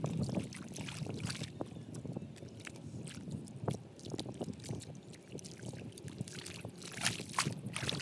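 Hands squelching and sloshing through wet mud and shallow muddy water, with irregular slaps and splashes that come thicker near the end.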